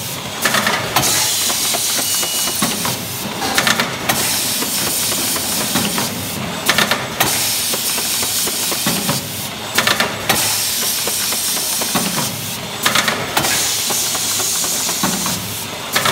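Automatic packing machine for hot melt glue sticks running through its counting and bagging cycle. A steady hiss is broken about every three seconds by a short cluster of clicks and clatter, once per cycle.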